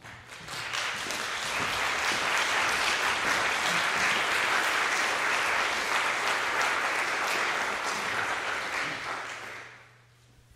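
Audience applauding. The clapping builds within the first second, holds steady, then dies away near the end.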